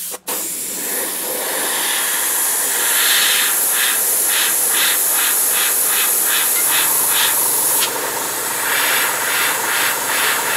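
Airbrush spraying grey paint: a steady hiss of compressed air that pulses evenly about three times a second through the middle and again near the end.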